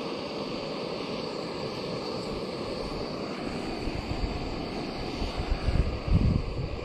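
Backpacking gas canister stove burning steadily as it heats a pot of water toward the boil. Gusts of wind buffet the microphone from about four seconds in.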